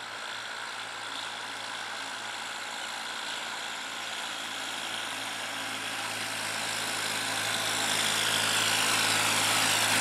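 CASE tractor's diesel engine running at a steady, low-revving pace as it pulls a loaded trailer, growing steadily louder as it approaches.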